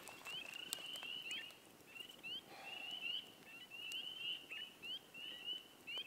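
A night chorus of small frogs peeping: many short, rising peeps, several a second, overlapping, with a few faint clicks among them.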